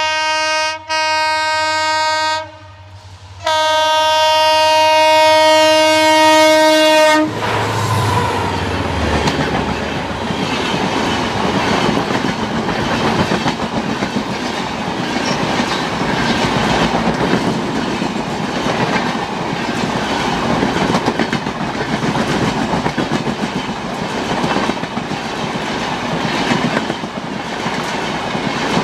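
Diesel locomotive horn blasting loudly three times, with a brief break about a second in and a longer gap around three seconds, then cutting off about seven seconds in. The train then passes close by with a steady rumble and rhythmic wheel clatter on the rails.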